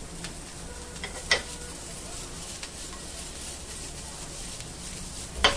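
Chopped capsicum and tomato sizzling in butter in a non-stick frying pan as the pan is tossed. A few sharp clinks ring out, loudest about a second and a half in and again near the end.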